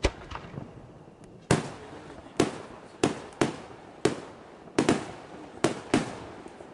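Aerial firework shells bursting in the sky: about ten sharp bangs at uneven intervals, each trailing off in an echo.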